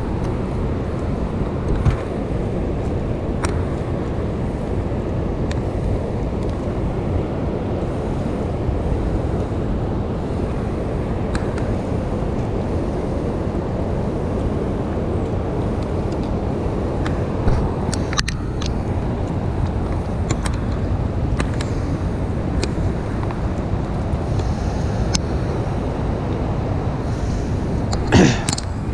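Steady low rushing of fast river water below a dam, with scattered light clicks and a louder short knock near the end.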